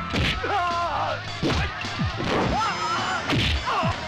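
Film fight sound effects: several sharp punch and smack impacts over a dramatic background score.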